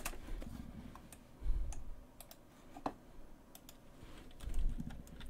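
Computer keyboard typing and mouse clicks: scattered light keystrokes and clicks. There are two dull low thumps, one about one and a half seconds in and one near the end.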